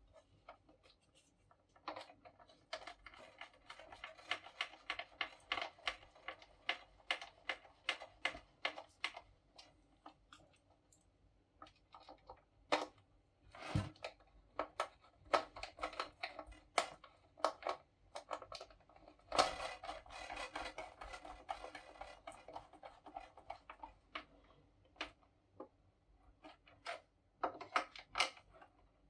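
Screws being driven by hand into a paper laminator's plastic housing: runs of rapid, scratchy clicks from the screwdriver turning, in several stretches with short pauses between them.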